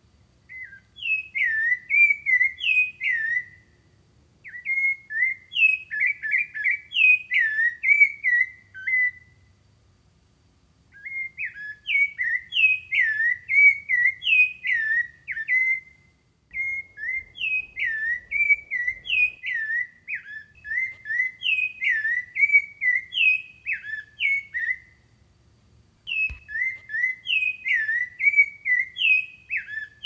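Rufous-bellied thrush singing: quick whistled notes sliding up and down, strung into long runs broken by short pauses of about a second.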